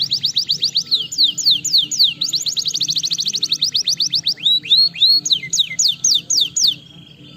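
Canary singing a fast, loud song of rapid downward-sweeping whistled notes in trills that change speed, with a few rising-then-falling notes later, stopping abruptly near the end.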